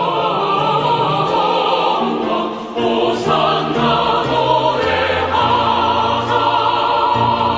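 A women's choir singing a two-part choral piece in long held notes over an instrumental accompaniment.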